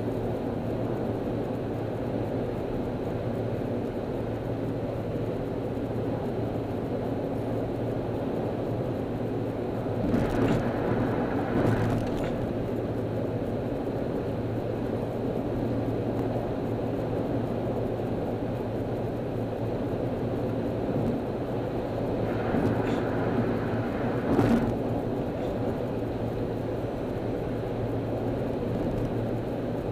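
Steady road and engine noise of a car cruising on a freeway, heard inside the cabin, with a low hum under it. It swells briefly twice, about a third of the way in and again about three quarters of the way through.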